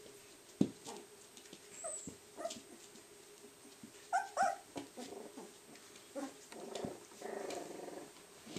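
Three-week-old Welsh Corgi Cardigan puppies whimpering in short, high squeaks, the two loudest about four seconds in, with a few light knocks.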